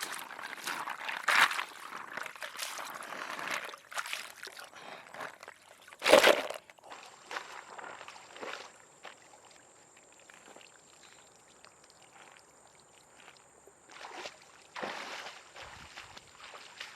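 Water pouring and sloshing in irregular bursts, busiest in the first few seconds, with a louder sudden splash-like sound about six seconds in and then quieter stretches.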